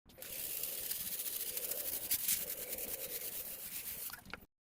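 Steady scrubbing or rubbing noise, hissy and rapid, that starts and stops abruptly, a little louder about two seconds in.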